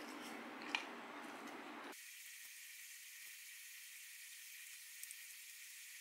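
Quiet eating sounds of smoked chicken and rice taken by hand: a few soft clicks and mouth noises of picking and chewing over a steady hiss. About two seconds in, the deeper part of the background drops out, leaving only a thin high hiss.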